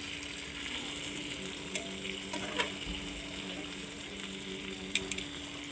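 Marinated chicken legs sizzling steadily as they fry in oil in a nonstick frying pan. A few short clicks come from metal tongs turning the pieces against the pan.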